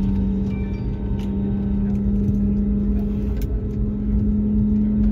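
Airliner's jet engines heard from inside the cabin while taxiing onto the runway for takeoff: a steady drone over a low rumble, its hum edging up in pitch near the end.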